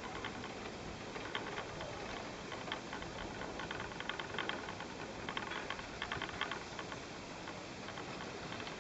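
Ride on a single-seat chairlift: a steady hiss with scattered bursts of light clicking and rattling.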